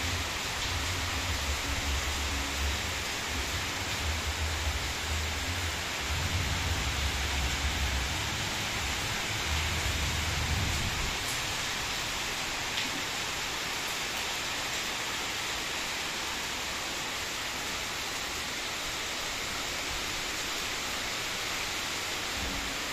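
Heavy rain falling steadily: a dense, even hiss. A low rumble comes and goes through the first half and stops about eleven seconds in.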